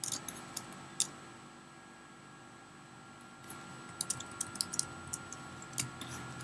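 Computer keyboard keys clicking as shortcuts are pressed: a few sharp clicks in the first second, then after a quiet stretch a quick run of clicks from about four seconds in.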